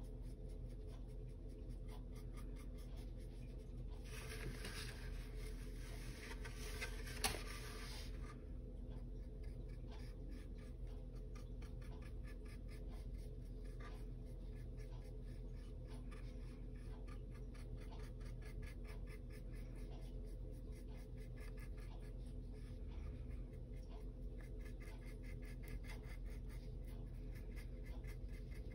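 Soft scratching and ticking of a small round paintbrush stroking and dabbing acrylic paint onto a wooden panel, over a steady low hum. About four seconds in the brushing turns denser for a few seconds and ends with one sharp click.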